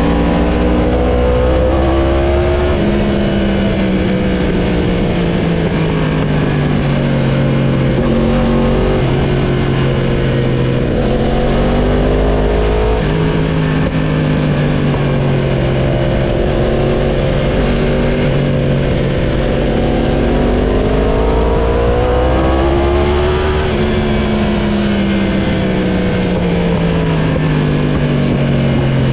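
Sportbike engine heard from on board while riding, its revs rising and falling with the throttle. Three times the pitch jumps up suddenly and then sinks slowly.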